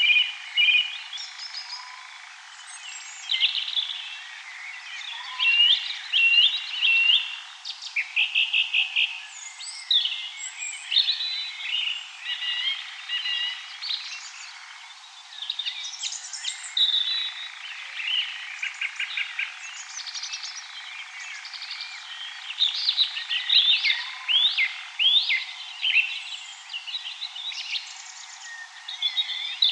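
Dawn chorus of many wild birds singing and calling at once, with overlapping trills, chirps and quick repeated notes. The low end is filtered away, so the sound is thin and bright.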